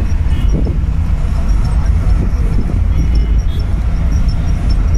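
A moving bus heard from inside its cabin: a loud, steady low rumble of engine and road noise.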